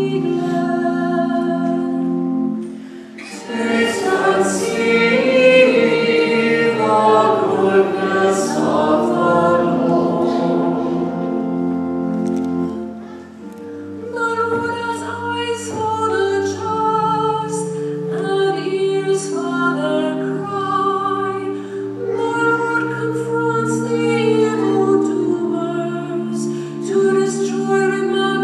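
Responsorial psalm sung in church with organ accompaniment: a sung melody over held organ chords. It breaks off briefly twice, about three seconds in and again near the middle.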